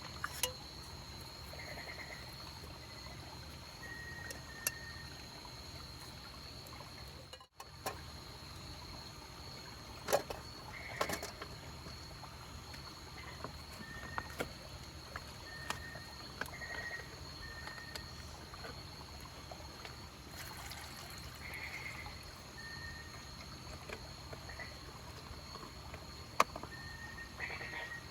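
Night insects: a steady high-pitched trill, with short chirping calls every second or two. Scattered sharp clicks, the loudest about ten seconds in and near the end.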